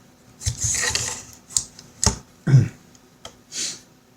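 A camera mount being adjusted and lowered, handled close to the microphone: an irregular run of clicks, knocks and short rustles.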